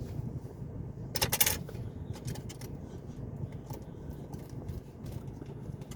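Small pair of scissors worked open and shut: a quick run of sharp metal snips and clicks about a second in, then a few lighter clicks, over a steady low background rumble.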